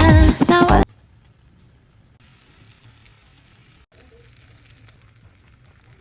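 Music stops abruptly under a second in, then a faint sizzling with light scattered crackles that thickens about two seconds in: martabak telur frying in oil in a pan.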